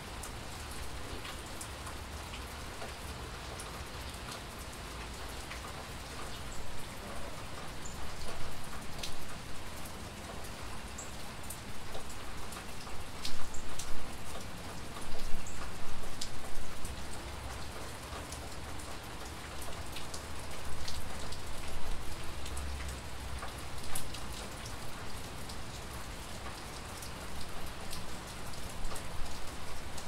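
Rain falling steadily, with sharp single drops striking now and then, and spells where it grows louder.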